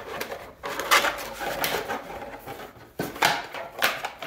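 Stacks of paper QSL cards being slid and pushed by hand into a 3D-printed plastic card box: several short rustles and scrapes with light knocks against the box walls, loudest about a second in and again near the end.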